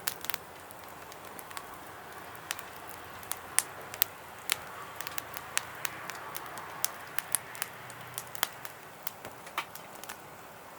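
Small wood campfire crackling: sharp, irregular pops over a soft hiss.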